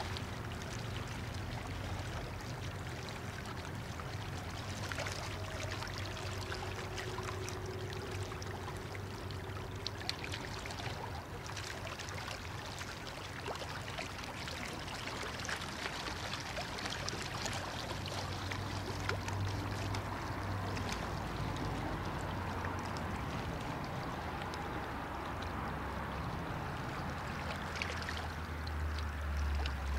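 River water lapping and splashing at the Rhine bank, with a steady low hum underneath that grows louder near the end.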